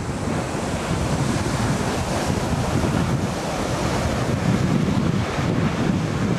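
Surf breaking over a sandy river bar, a steady wash of waves with wind buffeting the microphone.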